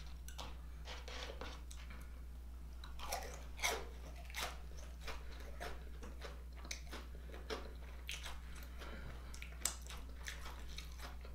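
A man chewing and biting food close to the microphone: irregular wet clicks and crunches, with a steady low hum underneath.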